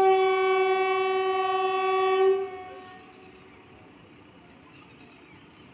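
Electric locomotive's air horn sounding one steady single-pitch blast of about two and a half seconds, then fading away.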